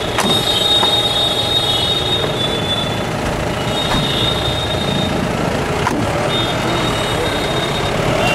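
Loud, steady street and vehicle noise, with a thin high-pitched squeal that comes and goes several times.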